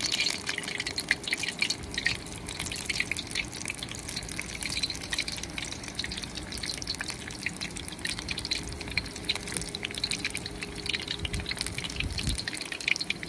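Hot oil deep-frying hush puppies: a steady, dense sizzle and crackle.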